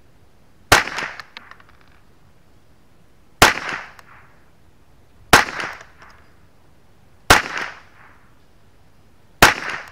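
Five .22LR rifle shots from a semi-automatic Ruger 10/22 firing Wolf Match Target rounds at about 1,080 ft/s, spaced about two seconds apart. Each is a sharp report followed by a short ringing tail.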